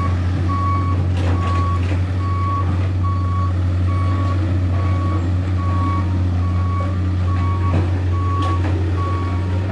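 Reversing alarm of a Mitsubishi Canter dump truck beeping at a single steady pitch, a little more than one beep a second, over the steady low hum of its diesel engine as the truck backs up.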